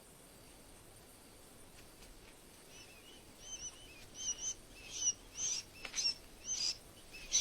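Sandgrouse chicks peeping: short, high chirps, each rising and falling slightly in pitch, coming in an irregular run from about three seconds in after a faint, quiet start.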